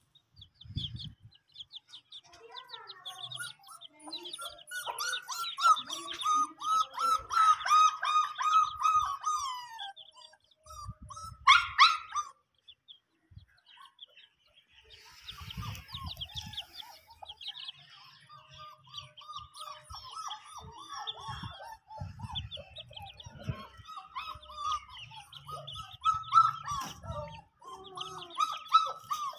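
Chickens clucking amid a busy, continuous chatter of short bird chirps, heaviest between about four and ten seconds in, with one sharp, loud call near twelve seconds. A few dull low thumps sound now and then.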